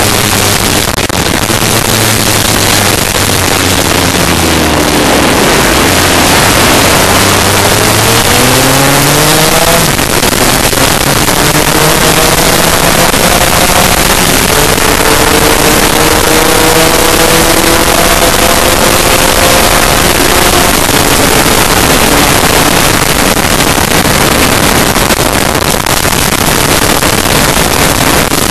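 Heavy wind rushing over the microphone of a racing scooter at speed, with the two-stroke Lambretta race engine underneath. The engine note drops a few seconds in, climbs steeply as the scooter accelerates, then climbs again more slowly through the middle before it is lost in the wind.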